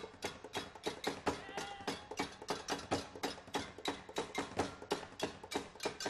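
Percussion ensemble playing a steady rhythm of sharp, clicking strikes, about four a second, some leaving a brief ringing tone.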